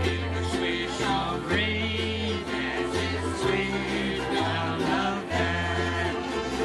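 Live Hawaiian ukulele band playing, several ukuleles strummed over an electric bass line, with a woman singing the melody into a microphone.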